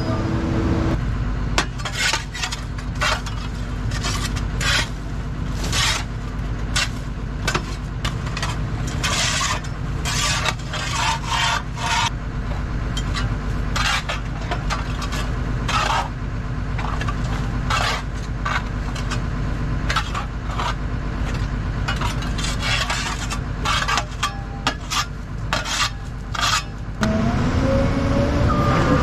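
Kobelco SK250LC excavator's diesel engine running steadily while a hand tool makes repeated, irregular scraping and rasping strokes against the steel track frame. About two seconds before the end the engine note rises as the machine comes under load and the tracks start to move.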